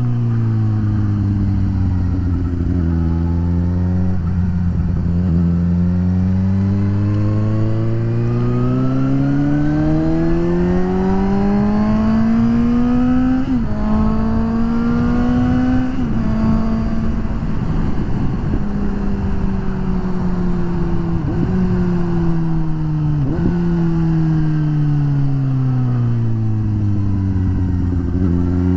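Suzuki GSX-S750's inline-four engine under way, its pitch climbing steadily as the bike speeds up, with a few sudden hitches in pitch around the middle, then falling away as it slows and rising again near the end.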